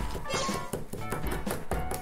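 Background music over repeated dull thumps of pork being pounded thin on a cutting board.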